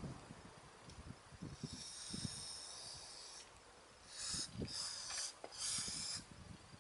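Aerosol spray can hissing as cleaner is sprayed onto small brake caliper parts: one longer spray of about two seconds, then three short bursts. Faint knocks come from the parts being handled.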